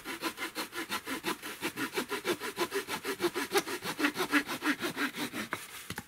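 Saw blade of a Victorinox Hercules pocket knife cutting through a half-dry, resinous larch branch in rapid, even back-and-forth strokes, about five a second, stopping just before the end.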